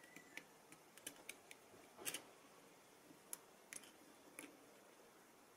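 Faint, irregular small clicks and ticks of a small ball bearing being taken apart by hand, its cage and loose balls knocking, with one louder click about two seconds in.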